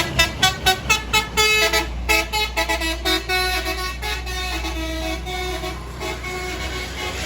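Tour bus's Basuri 'telolet' musical horn playing a tune: a quick run of short notes, then longer held notes that die away about six seconds in, over a low engine and traffic rumble.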